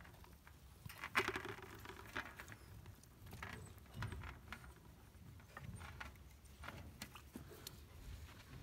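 Livestock guardian dog puppies scuffling at a woven-wire fence pen: irregular clicks, scratches and light rattling of paws on straw and wire, busiest about a second in.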